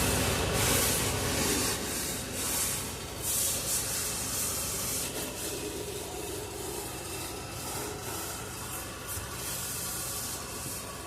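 Scrubbing strokes against a surface, strongest in the first few seconds, then softer and steadier.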